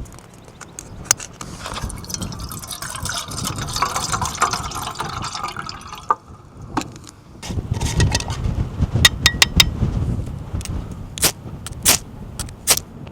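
Seawater sloshing and lapping, with scattered sharp clicks and small splashes, most of them in the second half.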